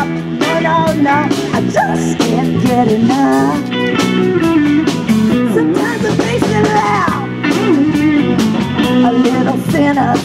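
Live blues band playing an instrumental passage on electric guitars, bass guitar and drums, with a lead line of bending notes over a steady drum beat.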